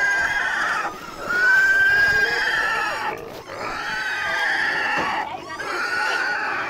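A pig squealing loudly in long, high cries, each lasting a second or more, repeated about four times in a row with short breaks between.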